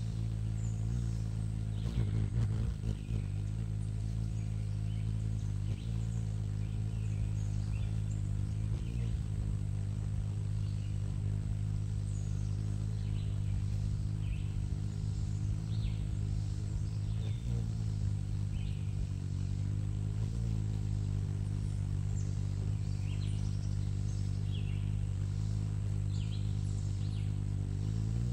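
Hummingbird's wings humming as it hovers at the feeder close to the microphone: a steady low buzzing tone whose pitch wavers briefly now and then as the bird shifts position. Short high chirps come and go over the hum.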